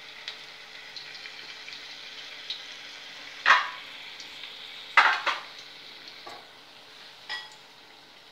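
Chapati pieces coated in maida and cornflour batter deep-frying in hot oil in a steel kadai, giving a steady sizzle. Two sharp, louder bursts come about a second and a half apart, near the middle.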